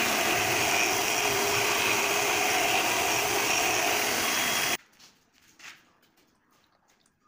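Table-mounted router-style marble finishing machine running steadily with its bearing-guided bit spinning, a loud even whine, cut off abruptly about five seconds in. After that, only faint small taps and splashes as the stone letter is handled in water.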